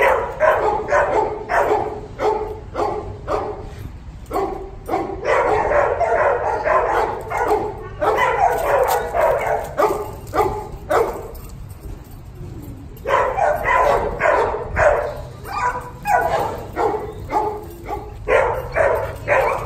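Dogs play-barking in rapid bouts, several sharp barks a second, with a brief lull a little past halfway.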